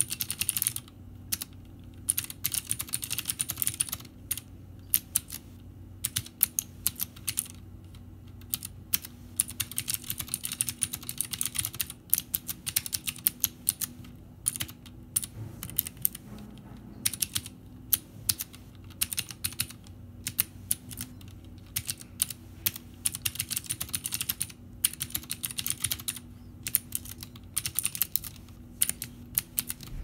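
Typing on a Vortex Core compact mechanical keyboard with clicky Cherry MX Blue switches: quick runs of keystrokes broken by short pauses.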